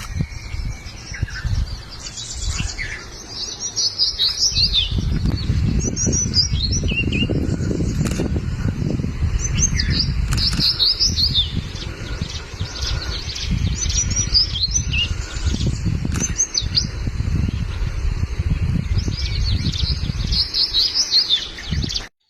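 Crested bunting calling: short phrases of high, descending notes, repeated every few seconds, over a loud low rumble. The recording cuts off abruptly near the end.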